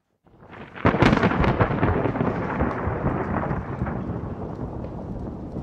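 Thunderclap: a rumble builds, breaks into a loud crack about a second in, then trails off in a long crackling rumble that slowly fades.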